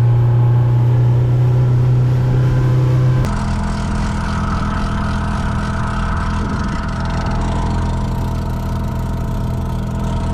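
Power boat's engine running steadily as the boat motors along, with an abrupt change in its tone about three seconds in.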